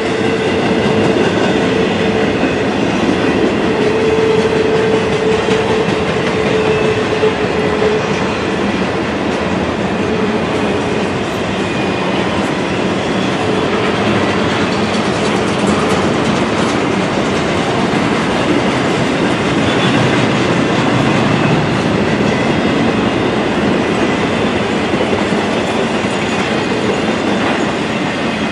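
Double-stack intermodal container train rolling past: a steady rumble of steel wheels on rail with rapid clickety-clack from the wheels and joints. A steady ringing tone sits over it for roughly the first eight seconds.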